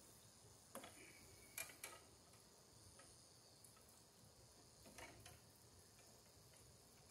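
Near silence, with a few faint clicks and taps from handling a screwdriver and an electrical receptacle, scattered through the first five seconds over a faint steady high hiss.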